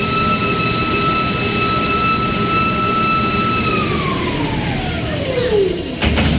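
Toilet paper converting machine running at speed with a steady high whine, then winding down about three and a half seconds in, the whine falling steadily in pitch as it slows. A few sharp knocks come near the end.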